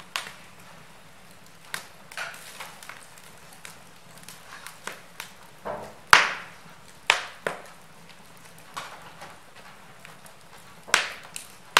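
Wood logs burning in an open fireplace, crackling with irregular sharp pops. The loudest pop comes about halfway through, with a few more strong ones shortly after and near the end.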